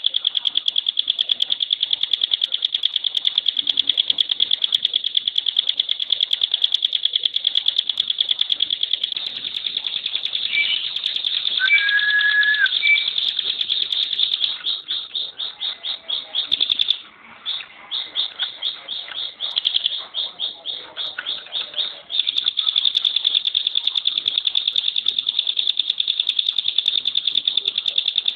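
Ciblek pinus (a prinia) singing a long, very fast rattling trill of dry, high notes: the dense 'tembakan' phrase prized in songbird contests. Past the middle the trill loosens into separate pulses, with a brief break, then runs dense again. A few short whistled notes sound near the middle.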